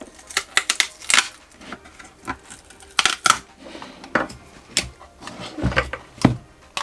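Irregular clicks, crackles and light knocks of parts being pulled off an opened e-bike battery pack by hand, with a couple of duller thumps near the end.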